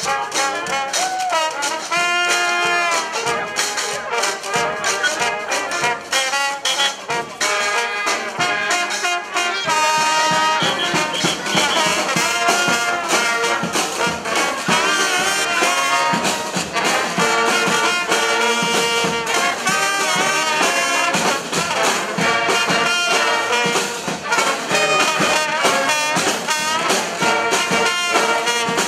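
Street brass band playing, trumpets and trombones over steady drumming.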